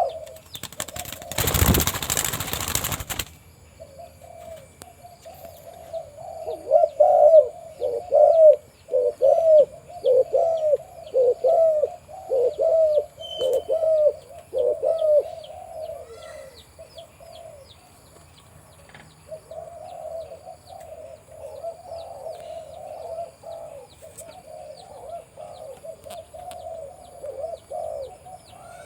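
Male spotted dove cooing in repeated low phrases, in two long runs. About a second in there is a loud rush of noise lasting about two seconds.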